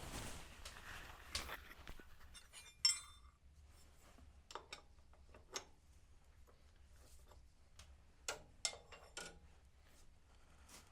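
Metal parts of a tractor engine's oil centrifuge clinking and knocking as they are reassembled by hand. A rustling hiss in the first two seconds, then a loud ringing clink about three seconds in, followed by scattered lighter clinks and knocks.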